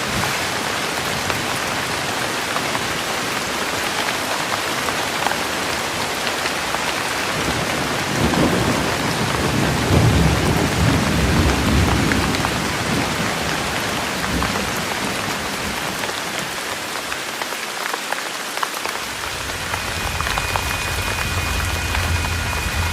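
Steady rain falling, with a low rumble of thunder rolling through the middle. Near the end a faint, steady high tone comes in over the rain.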